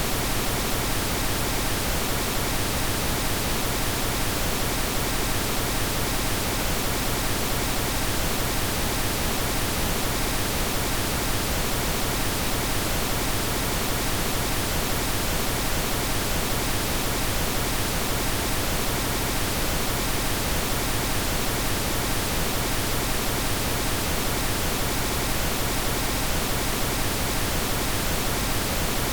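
Synthetic pink noise: a steady, even hiss that does not change.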